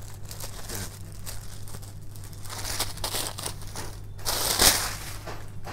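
Silk sarees rustling and crinkling as they are handled, unfolded and spread out by hand, with a louder swish about four and a half seconds in. A steady low hum runs underneath.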